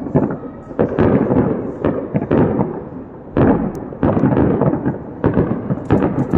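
Aerial fireworks exploding in quick succession: a dense volley of overlapping booms and sharp bangs with rumbling echoes, a few a second.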